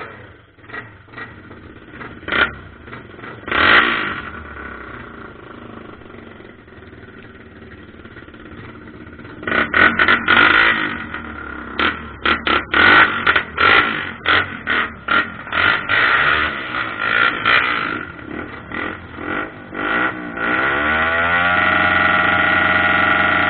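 Trail motorcycle engine being started after standing unused for a month: a couple of early bursts, then it catches and is revved in a run of short sharp blips, and near the end it rises and holds a steady rev.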